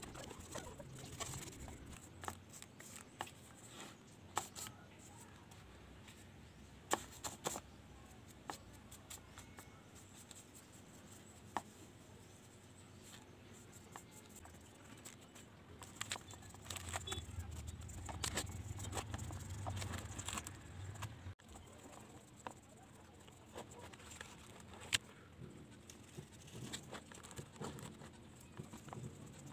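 Faint scattered taps and scratches of a stiff paintbrush dabbing paint onto a rough cement figure, with a low rumble for a few seconds after the middle.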